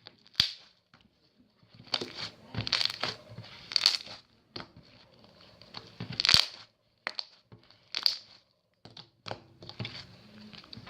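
Fluffy slime with foam balls being mixed and squished, giving irregular crackly crunches and sticky popping clicks.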